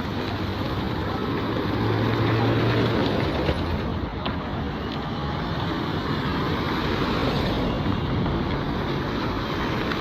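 Steady street traffic noise from vehicles on the road, with a low engine hum from a passing vehicle rising about two seconds in.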